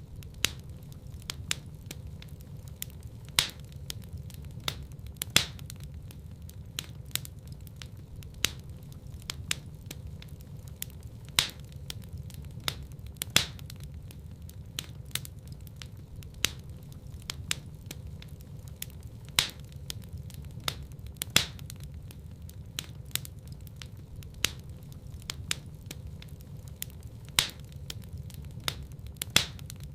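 Wood fire burning in a fireplace: a steady low rumble of the flames with irregular sharp crackles and pops, several a second, a few much louder snaps among them.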